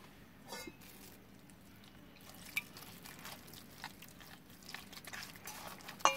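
A hand mixing and squishing thick gram-flour paste in a stainless steel bowl: faint wet squelches with scattered light clicks, the sharpest click just before the end.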